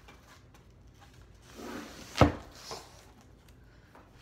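A cardboard box being opened by hand: a scrape of cardboard, then a sharp thump a little over two seconds in and a softer one half a second later.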